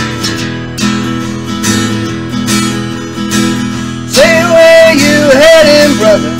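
Acoustic guitar strumming an instrumental passage of a folk-style original song. About four seconds in, a singing voice comes in over the guitar, holding wavering notes.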